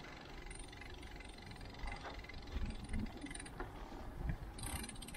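Bicycle being ridden on a paved street: a steady low rumble from the tyres and frame, with scattered mechanical clicks and rattles from the bike.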